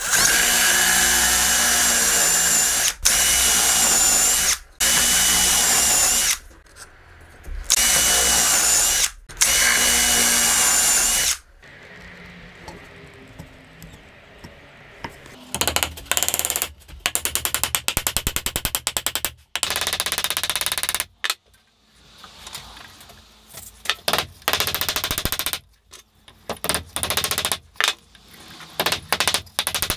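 Cordless drill with a twist bit boring holes into pine, running in five bursts of one to three seconds each with a steady high motor whine. After a quieter spell, the second half holds stretches of rapid clicking or tapping.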